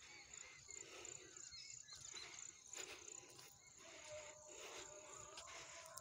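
Faint countryside ambience: a steady high insect buzz with small bird chirps, and footsteps on dry grass and a dirt path.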